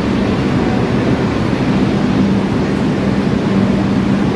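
R142 subway train rolling slowly into the station and coming to a stop: a steady rumble of wheels and running gear with a low hum that comes and goes.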